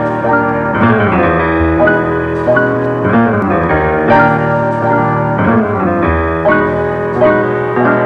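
Intro music: a piano tune with chords and a melody, notes changing about every half second.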